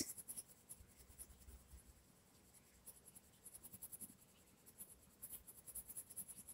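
Faint scratching of a Castle Arts Gold coloured pencil shading on colouring-book paper over earlier layers of colour, in quick strokes that come in short runs.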